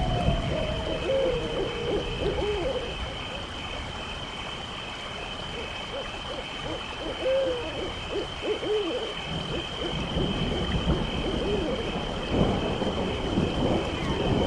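Owl hooting, short hoots repeated at irregular intervals, over a steady high-pitched drone and a low rumbling background: a night-time horror ambience.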